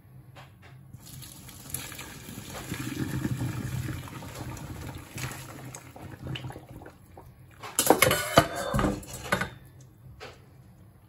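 Hot water pouring from a stainless saucepan through a mesh sieve as boiled samphire is drained, a steady wash for a few seconds. About eight seconds in comes the loudest part, a quick run of metal clattering and splashing as the last of the pan is tipped out.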